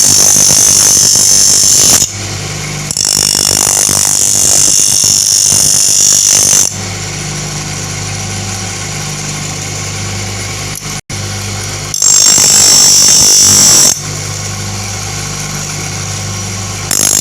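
Electric grinder motor running steadily while a wood-cutter blade held in a jig is pressed against the wheel in passes: loud grinding hiss at the start, again from about three to nearly seven seconds, about twelve to fourteen seconds in, and near the end. Between passes only the motor's steady hum is heard.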